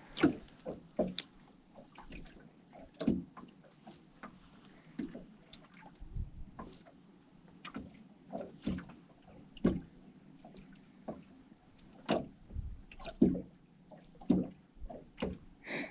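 Small waves slapping and lapping against the hull of a small fishing boat: irregular knocks and splashes about once a second.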